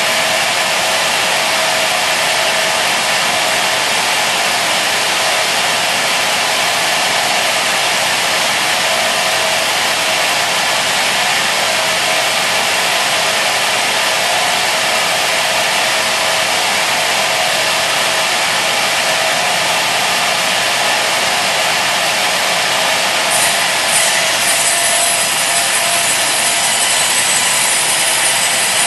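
Raimann woodworking saw running and cutting timber, a loud steady sawing noise. A high, thin whine joins about three quarters of the way through and holds.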